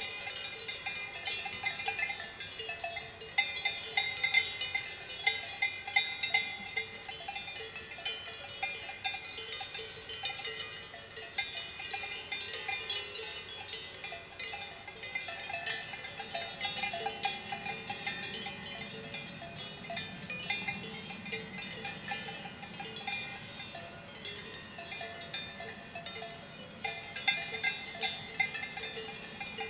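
Swiss cowbells worn by a herd of grazing cows ring irregularly, with several bells of different pitch clanking and overlapping as the animals move.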